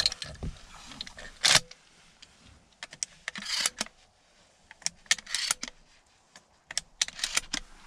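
Scattered clicks, taps and short rustles of gear being handled inside a pickup truck's cab, with one louder knock about a second and a half in.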